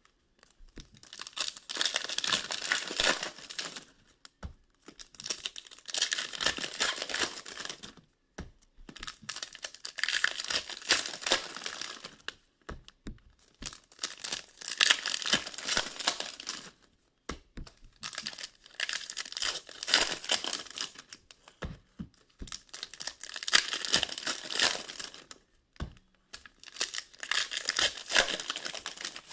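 Wrappers of hockey card packs being torn open and crinkled one after another: about seven bursts of crinkling, each a couple of seconds long, with short pauses between them.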